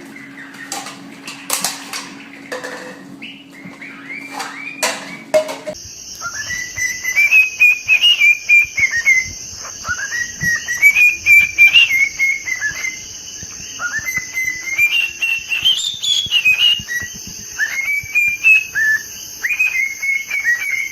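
A parrot whistling a series of notes, each rising and then falling, over a steady high hiss. Before them come a few seconds of scattered clicks and taps.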